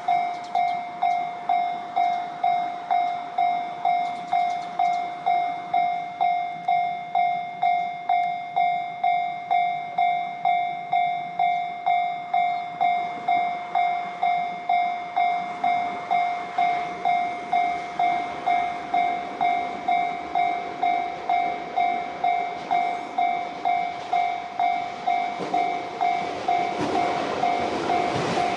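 Japanese railway level-crossing alarm ringing its electronic warning bell, an even ding repeating about one and a half times a second, which signals that a train is approaching. Near the end the rumble of the oncoming train rises under the bell.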